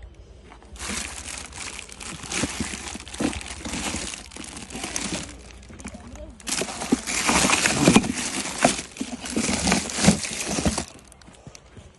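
Rustling and crinkling of something being handled, in two long stretches with a short lull about five seconds in.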